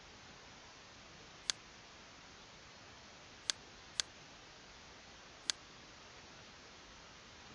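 Computer mouse clicks: a single click about a second and a half in, a quick double-click in the middle that opens a folder, and another single click near the end, over a faint steady hiss.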